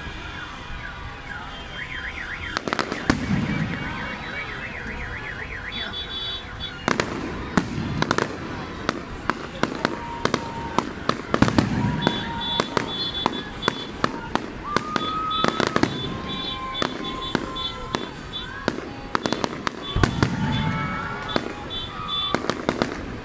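Aerial fireworks bursting overhead: a continuous run of sharp bangs and crackles. Warbling and repeated beeping tones sound behind them.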